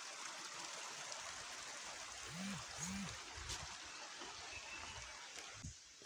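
A small stream flowing, a steady rush of water that fades away near the end.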